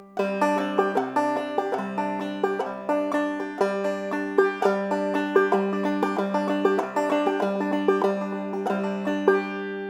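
Banjo played clawhammer style: a quick, steady run of plucked notes over a sustained low ringing note, played as a Round Peak-style filler lick.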